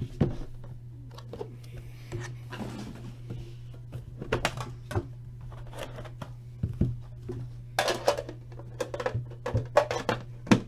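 Cardboard and plastic packaging of a hockey-card box being handled and opened: irregular sharp clicks, taps and brief crinkles, thickest near the end, over a steady low hum.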